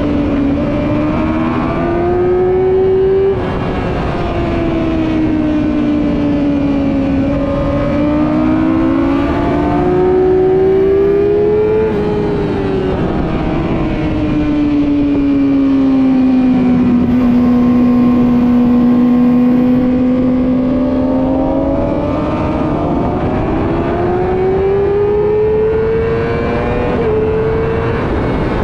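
Yamaha YZF-R6 inline-four sport bike engine at speed on track. The revs climb under throttle and drop sharply as it shifts up, about three seconds in and again near the end. In the middle the revs ease off and hold low for several seconds before climbing again, with wind rush under the engine note.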